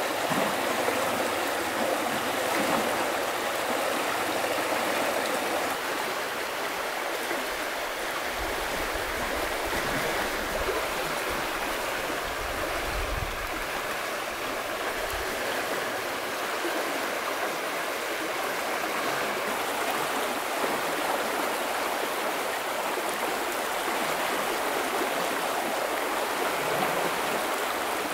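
Shallow stream flowing over rocks: a steady rush of running water.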